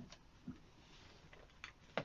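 A few faint, sharp clicks and light knocks of metal tools and parts being handled at a bicycle's rear hub: one at the start, one about half a second in, and another near the end.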